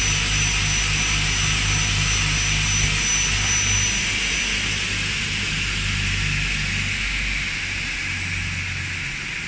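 Double-head aluminium cutting saw running, its 1.5 kW motors spinning the 405 mm blades with a steady hum and whir. The low hum thins out about two seconds before the end.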